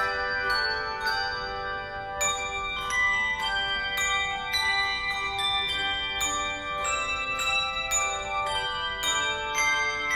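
Tuned bells playing a melody, notes struck in quick succession and each ringing on under the next.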